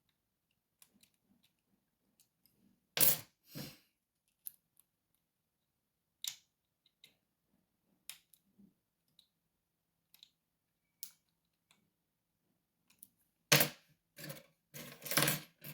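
Lock picking: small metallic clicks of a pick and tension wrench working the pins of a lock, with two sharp clicks about three seconds in and a quick run of louder clicks near the end, where the lock goes into a very deep false set.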